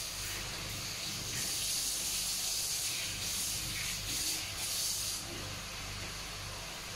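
Food hissing and sizzling in a pot on a lit gas burner. The hiss swells louder about a second and a half in and eases back before the end, over a steady low hum.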